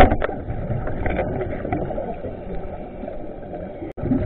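Speargun spear striking, heard underwater as one sharp knock at the start, followed by muffled rushing water noise and small clicks. The sound cuts out briefly near the end.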